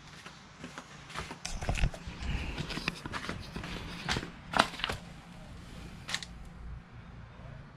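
Footsteps in flip-flops on a concrete floor, then the handling of a handheld camera as it is picked up and moved. Irregular knocks, scuffs and rustles, with the sharpest knock a little past four and a half seconds.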